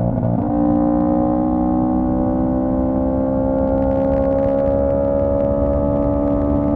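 Honda CB125T's 124 cc parallel-twin engine pulling steadily on the road, with a brief break in its note just after the start like a gear change, then a steady note that climbs slowly as the bike gathers speed. The rider finds it running well.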